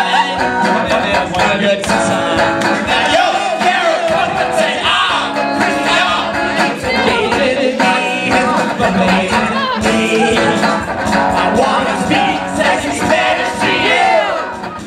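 Live song: male voices singing loudly over a strummed electric guitar.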